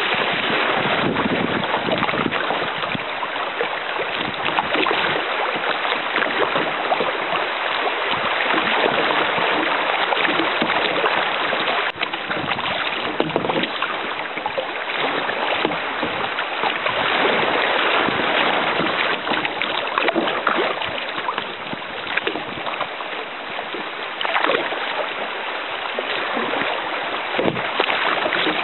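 Shallow river riffles rushing and splashing around a kayak's bow: a steady, loud hiss of moving water, heard from a camera mounted on the bow.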